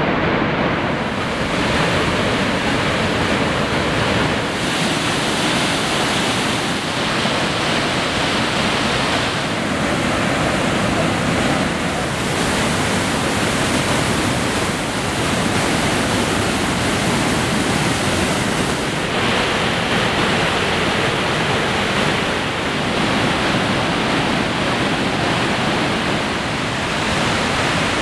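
Steady rush of the Iguazu Falls' huge waterfalls in high, muddy flow: a dense, unbroken water noise. The hiss in its upper range grows and fades several times.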